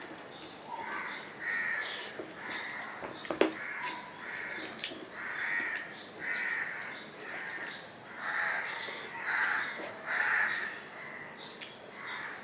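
A bird calling over and over, roughly once a second, with a sharp click about three seconds in.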